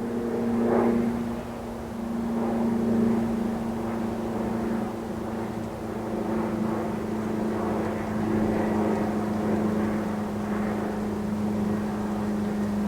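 A distant engine drone: a steady low hum that holds one pitch, over a rushing background noise that swells and fades.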